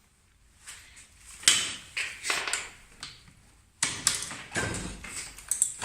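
A series of sharp clanks and clatters: metal tools and sockets being knocked about and rummaged through in a toolbox.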